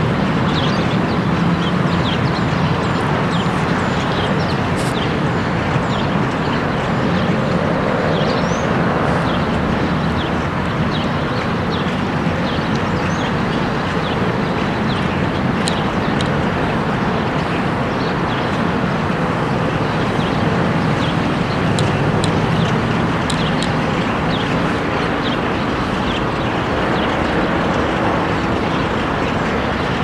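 Many short, high bird chirps and calls from a flock, scattered throughout over a steady rumble of traffic.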